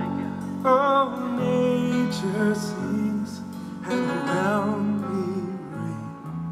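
Background music: long held melody notes, some wavering, over a steady lower accompaniment.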